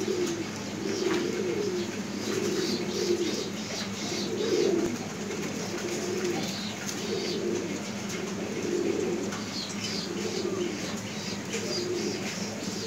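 Teddy pigeons cooing: a run of low coos that repeats about once a second.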